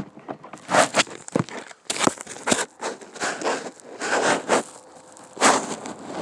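Rustling, crinkling and scraping handling noises close to the microphone, in about ten irregular bursts with a few sharp clicks: hands fiddling with the recording phone to prop it up as a stand.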